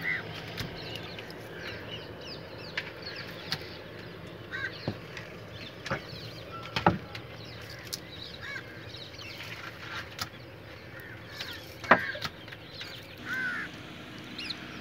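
Birds calling repeatedly in short chirps and caws, with occasional sharp knocks, the loudest about twelve seconds in.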